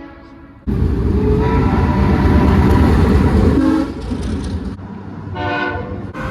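Locomotive air horn sounding over the heavy rumble of a train passing close by. The horn and rumble cut in suddenly less than a second in and fade after about three seconds. A second, shorter horn blast follows near the end.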